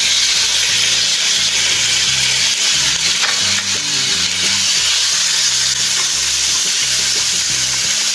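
Chopped tomatoes and coriander leaves, freshly added to onion, garlic and ginger sautéing in oil in a frying pan, sizzling with a steady, loud hiss.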